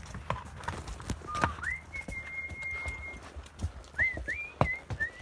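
Horses walking, their hooves clip-clopping in an irregular beat. A high thin whistle runs over it, holding one note for about a second and sliding up several times near the end.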